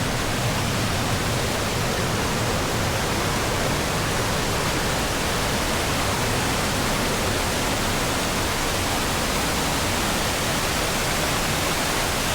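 Fast-flowing river water rushing below a footbridge: a steady, even roar of water with no break or change.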